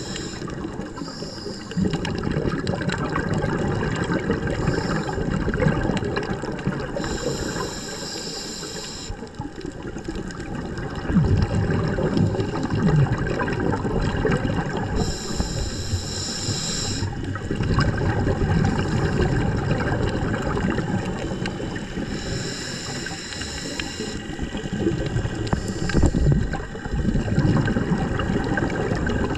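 Scuba diver breathing through a regulator underwater: about four breaths, each a short hissing inhale followed by a few seconds of rumbling, gurgling exhaled bubbles.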